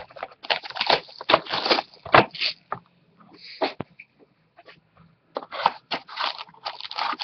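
Packaging and cardboard crinkling and scraping as a sealed baseball card box is opened by hand: two spells of quick rustles with a short pause between them.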